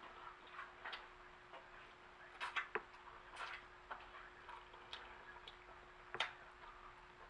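Close-up mouth sounds of eating turkey wing: irregular wet clicks of chewing and lip smacks, with a small cluster about two and a half seconds in and a sharp smack about six seconds in, over a faint steady hum.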